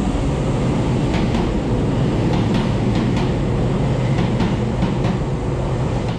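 Kobe Electric Railway (Shintetsu) electric train running along the station platform: a steady, loud rumble of wheels on the track, with a scattering of sharp clicks.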